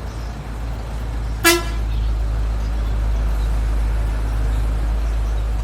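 One short, sharp blast from a six-trumpet telolet air horn about a second and a half in, over a steady low rumble.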